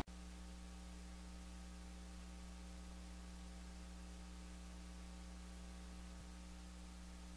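Faint, steady electrical mains hum.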